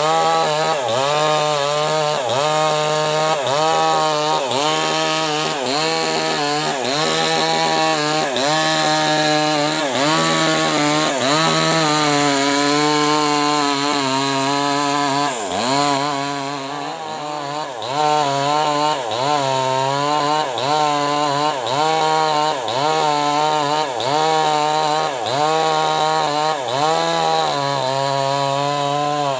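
Maestro CS6500L mini chainsaw running under load, ripping lengthwise through an acacia log. The engine pitch sags and recovers about once a second as the bar is worked through the cut, easing briefly a little past the middle.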